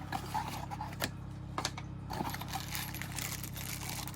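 Light clicks and taps with soft plastic rustling as a small air pump and its accessories are handled out of their packaging.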